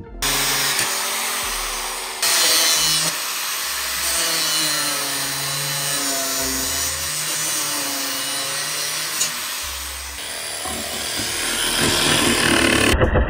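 DeWalt angle grinder cutting through a stripped metal bow-eye fitting, its pitch wavering as it bites under load. In the last few seconds it gives way to a DeWalt cordless jigsaw cutting plywood, with a rapid steady stroke.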